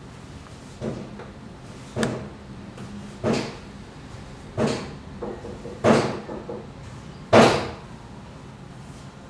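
Slow footsteps climbing a staircase: six separate thuds, about one every second and a half, each louder than the last.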